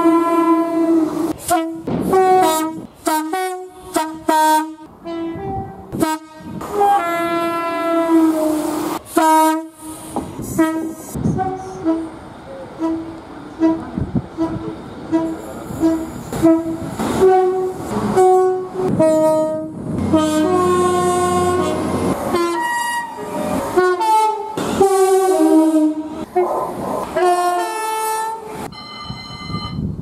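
Passenger train horns sounding again and again: mostly short blasts, some stepping between two pitches, a run of quick repeated toots about halfway and a longer held note a few seconds later, with train running noise between them.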